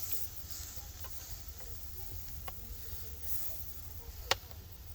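Steak sizzling faintly on a grill grate over wood embers, with a few small clicks and one sharp click about four seconds in.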